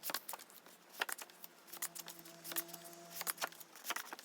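Paper album booklets and inserts being handled: faint rustling with many small clicks and taps.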